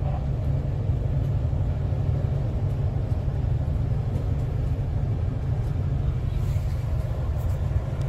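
Heard from inside a moving bus: the steady low rumble of its engine and tyres as it drives along at an even speed.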